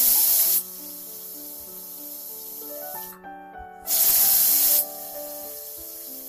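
Greenchef pressure cooker whistling twice on high flame, about four seconds apart: each whistle is a loud hiss of steam from the weight valve lasting about a second. Each whistle is one of the counted steam releases that tell the cook when the chickpeas are done.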